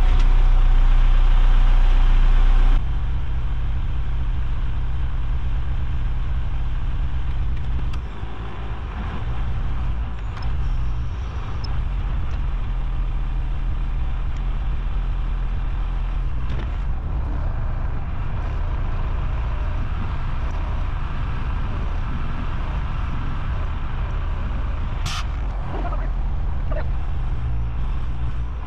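Cat wheel loader's diesel engine running, heard from inside the cab: a steady low hum that is louder at first and settles to a lower, steady run about three seconds in. A sharp click near the end.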